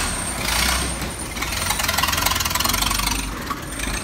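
The 1909 Kissel Kar semi-racer's 504-cubic-inch six-cylinder engine running as the car drives off. About a second and a half in it settles into a rapid, even beat of firing strokes, which eases off near the end.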